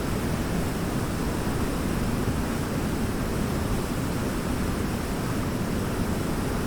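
Waterfall: a steady rush of falling water, deep and even, with no breaks or changes.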